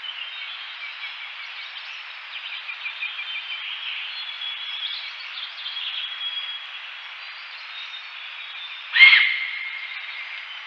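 Small birds chirping and whistling throughout, with one sudden, loud, short call from a Himalayan goral about nine seconds in.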